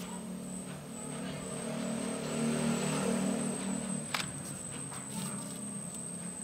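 A motor vehicle's engine passes by, swelling to its loudest about three seconds in and then easing off. A single sharp plastic click comes about four seconds in, as the bucket handle snaps into place on the pot.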